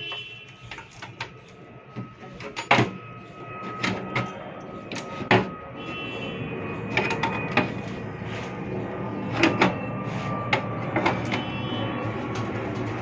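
Clicks and knocks from handling an inverter's circuit board and its wiring, with sharp knocks now and then, the loudest about three and five seconds in.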